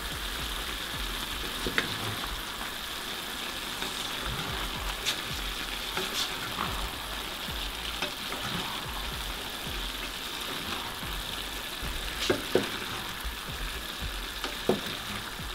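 Beef liver with onions and sweet peppers sizzling steadily in a frying pan while a wooden spatula gently stirs it, with a few short knocks and scrapes of the spatula against the pan, a pair of them about three quarters through.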